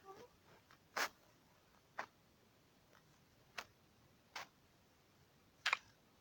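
Faint handling noise: a few short, separate taps and rustles, about five in all, with quiet between them.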